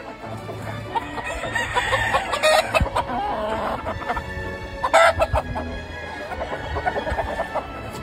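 Gamefowl roosters crowing, with chickens clucking, and a short, loud call about five seconds in.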